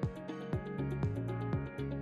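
Background music with a steady electronic beat: a falling kick drum about twice a second, hi-hats and sustained chords.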